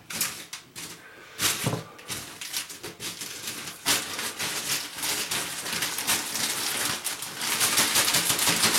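Objects being handled indoors: scattered clicks and knocks, turning into a denser rustling crackle about halfway through.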